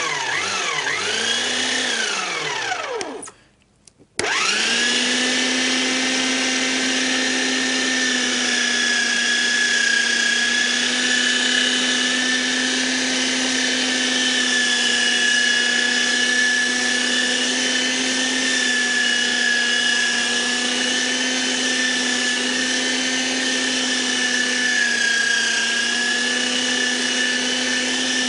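Electric meat grinder grinding fresh coriander, with a loud motor whine. It cuts out about three seconds in and starts again a second later, then runs steadily, its pitch dipping slightly now and then.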